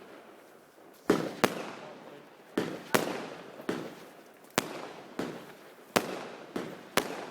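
Fireworks exploding in a quick, uneven series of sharp bangs, about ten in seven seconds, some in close pairs, each trailing off in an echoing rumble.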